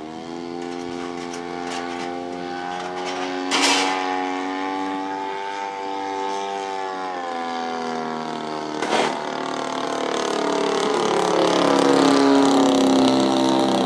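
Small two-stroke string-trimmer engine driving a model airplane, running fast and steady, its pitch drifting and then sliding up and down as it grows louder near the end. Two brief rushing noises cut in at about four and nine seconds.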